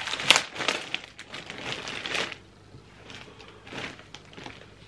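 Packaging crinkling and rustling as a folded pajama is unwrapped and pulled out. The noise is loudest and busiest for the first two seconds, with one sharp crackle near the start, then a few softer rustles as the garment is lifted.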